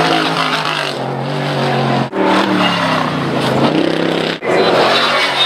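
Trophy truck engines revving hard through a jump, the pitch climbing and then falling away as the throttle comes off. The sound breaks off abruptly twice and picks up on another truck's engine each time.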